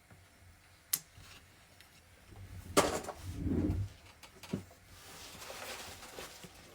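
Small objects being handled on a table: a sharp click about a second in, a louder knock with a low thud about three seconds in, another click, then a soft rustle.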